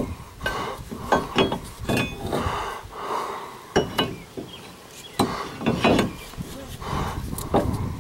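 Irregular metal clinks and knocks as a steering knuckle is handled and worked onto the splined front axle shaft.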